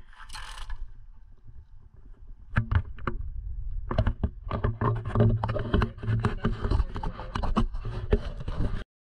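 Metal bicycle knocking, clattering and scraping against a bridge's concrete ledge and railing as it is hauled up on a magnet-fishing rope, with rough handling noise on the microphone. The knocks start about two and a half seconds in, come thick and fast from about four seconds, and the sound cuts off suddenly near the end.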